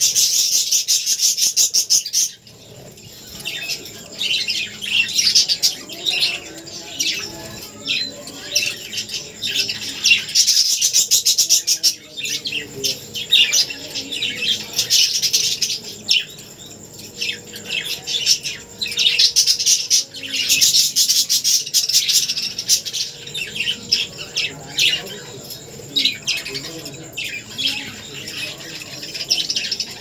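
Budgerigars chirping and chattering in loud bursts of quick high notes, several seconds long, with quieter gaps between them.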